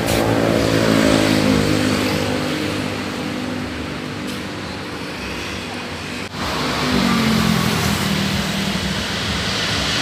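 Street traffic: two motor vehicles drive past one after the other, each engine's hum dropping in pitch as it goes by. The second passes about two-thirds of the way through.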